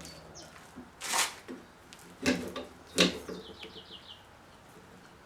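A short metallic scrape and two knocks as the bandsaw's quick-clamp vise is handled, with a quick run of small bird chirps in the background after the second knock.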